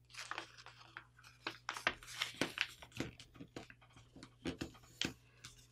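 Folded paper rustling and crinkling as hands pinch and collapse its layers into shape and press them flat, in short, irregular crackles.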